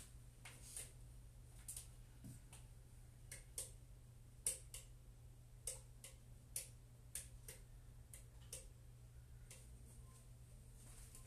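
Near silence: room tone with a low steady hum and faint, sharp clicks and taps at irregular intervals, roughly one to two a second.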